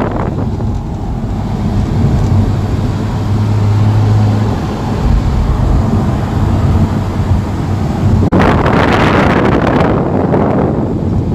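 Porsche 911 engine running with a steady low drone and wind on the microphone. About eight seconds in it switches abruptly to a louder, rushing sound of the car on the move.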